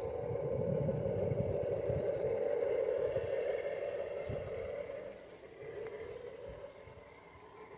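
Model diesel-outline locomotive running along a garden railway track: a steady mechanical hum over a low rumble, fading about five seconds in as it moves away.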